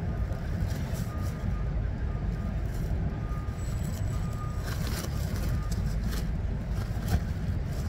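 Low, steady rumble of a vehicle engine running, with a reversing alarm beeping faintly about once a second, and a few short rustles of clothes being handled near the middle and end.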